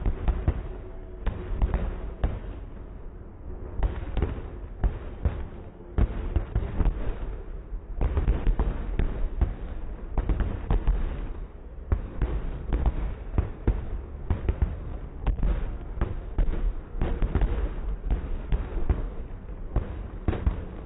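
Aerial fireworks display: a dense, irregular barrage of bangs and deep booms, coming in heavy clusters with brief lulls.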